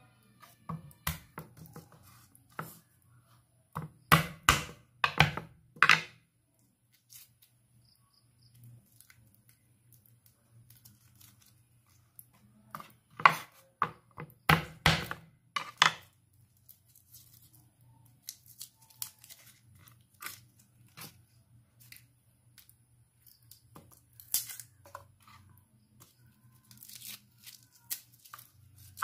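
Garlic cloves being crushed under a chef's knife blade and peeled on a bamboo cutting board: crackling, tearing crunches and papery skin rustling. The crunches come in two louder clusters, about four and thirteen seconds in, with scattered softer rustles and taps between.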